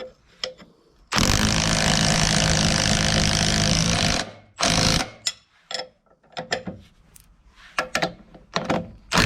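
Milwaukee impact wrench hammering for about three seconds as it runs bolts down snug, then a second short burst, followed by scattered clicks and knocks of the socket and metal.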